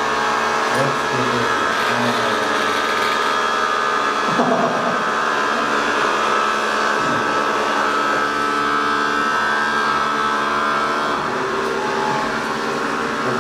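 Several bristlebot robots buzzing together on a tiled floor, their small vibration motors running at slightly different pitches to make one steady whir.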